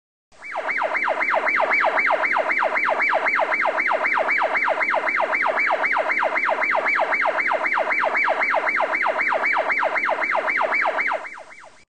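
Electronic siren in a fast yelp, its pitch sweeping up and down several times a second at an even, unbroken rate. It starts abruptly and cuts off shortly before the end.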